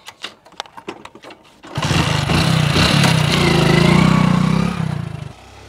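Motorcycle engine starting suddenly about two seconds in and running loud as the bike pulls away, then dying away near the end. A few light clicks and taps come before it.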